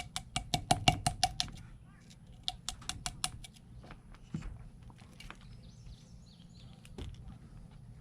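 Rapid sharp clicks of a metal tool tapping and chipping at the rust crust on a dug Civil War cap-and-ball revolver, about six a second in two runs, then a few scattered taps.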